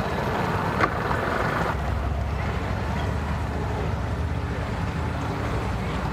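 Outboard motor idling with a steady low rumble as a boat maneuvers slowly at the dock, with wind noise on the microphone. A single short knock comes about a second in.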